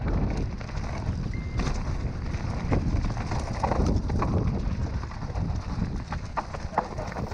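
Mountain bike rolling fast down a rough dirt singletrack: tyre rumble and wind buffeting the microphone, with scattered rattles and clacks as the bike hits rocks and roots, mostly in the middle and near the end.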